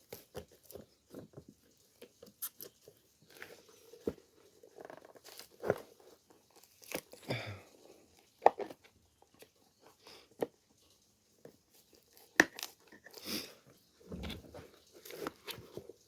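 Irregular creaks, crunches and sharp snaps as a shoe's heel is levered off with a hand tool, the glued parts tearing apart and barbed nails pulling loose. Two louder snaps come about halfway through and about three-quarters of the way through.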